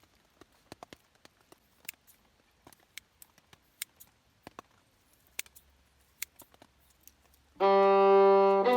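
Scattered, irregular sharp taps and clicks, faint and spaced well apart. Near the end, loud bowed violin music comes in with long held notes.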